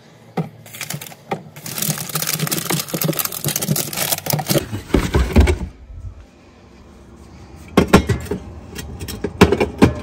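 Rustling and knocking as tangerines are put into a plastic fridge crisper drawer, with a few dull thumps about five seconds in. Near the end come sharp knocks as soda cans are set on a fridge shelf.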